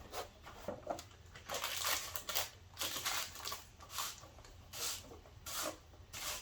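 Hands working on a petrol lawnmower: a string of short, irregular scrapes and rustles.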